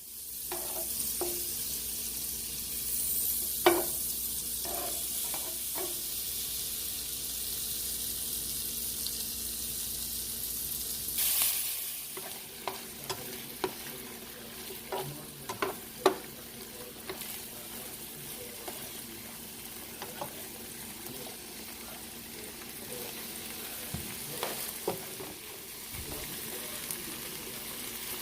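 Food frying in butter in a pan, a steady sizzle that eases a little about twelve seconds in. A spatula stirring scrapes and knocks against the pan now and then.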